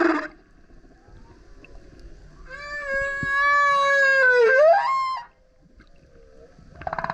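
Male humpback whale singing: a loud, pitched moan with many overtones holds steady for about two seconds, then dips in pitch and sweeps sharply upward before cutting off. The end of one song unit is heard at the start and the next begins near the end.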